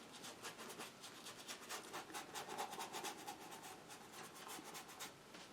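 A stiff bristle brush scrubbing and dabbing acrylic paint onto canvas in quick, repeated scratchy strokes. The strokes stop about five seconds in.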